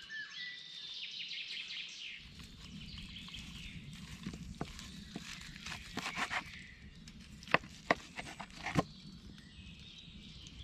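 A kitchen knife slicing a large roast beef shoulder on a wooden cutting board, with a string of sharp knocks as the blade strikes the board, the loudest in the second half. Birds sing during the first couple of seconds.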